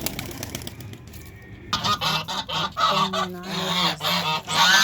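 A flock of domestic geese honking loudly, many calls overlapping, starting abruptly a little under two seconds in after a quieter stretch.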